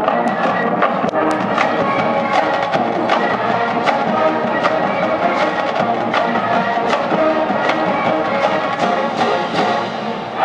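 College marching band playing on the field: brass over a steady, sharp drum-line beat.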